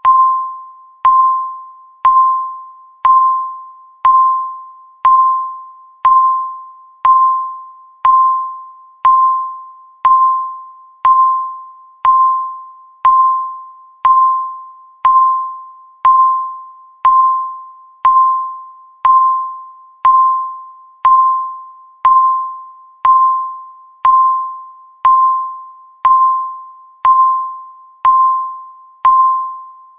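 Electronic countdown-timer beep sounding once a second, about thirty times: a single mid-pitched tone struck sharply, fading away before the next, marking each second left.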